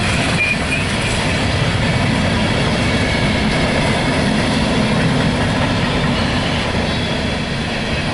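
Empty coal cars of a freight train rolling past: a loud, steady rumble of steel wheels on the rails.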